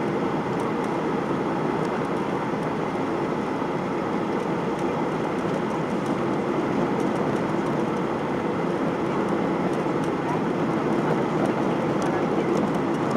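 Steady cabin roar of a Boeing 737-800 in flight on its approach: the CFM56 engines and the airflow around the fuselage make an even, unbroken noise, with a faint steady tone above it.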